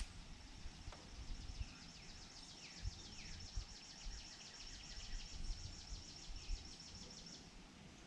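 Pond-side outdoor ambience: a fast, even trill of high ticks that stops abruptly near the end, with a few falling bird calls about three seconds in, over low wind rumble on the microphone.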